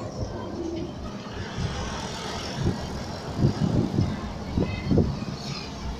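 Road noise from a car, heard from inside the cabin while driving. A few short low thumps come in the second half.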